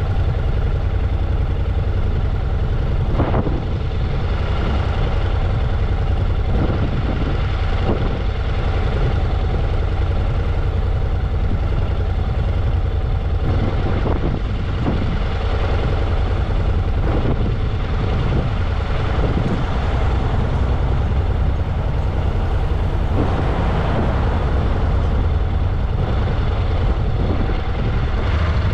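Honda parallel-twin motorcycle engine running steadily on the move, under a heavy, even low rumble of wind on the microphone.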